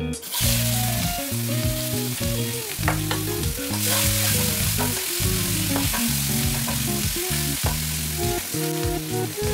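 Sliced onions hitting hot mustard oil with whole spices in a non-stick frying pan: a sizzle starts suddenly just after the start and carries on steadily as the onions fry, with small scrapes and taps of a wooden spatula stirring them. Soft background music with steady notes plays underneath.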